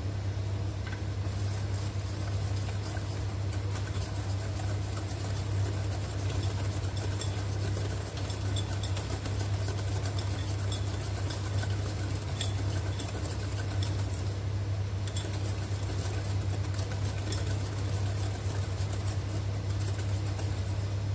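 Wire whisk beating a runny egg-and-oil batter in a glass bowl: rapid clicking and scraping of the wires against the glass, starting about a second in. A steady low hum runs underneath.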